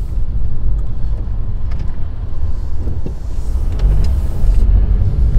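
Car driving, heard from inside the cabin: a steady low road and engine rumble that grows a little heavier about four seconds in, with a few faint clicks.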